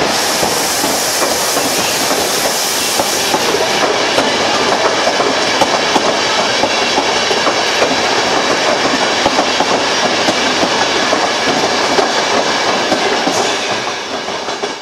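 Passenger coaches of an arriving train rolling past close by, wheels clicking over rail joints as it slows into the station, with a high hiss over the first few seconds. The sound fades out near the end.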